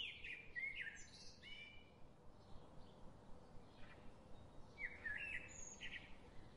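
Birds chirping: quick runs of high chirps in the first second or so and again around five seconds in, over a faint steady hum and hiss.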